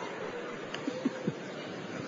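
Quiet hall ambience with a few faint voices from the congregation.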